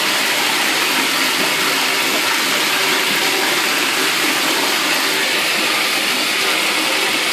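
Bathtub tap running, a steady rush of water.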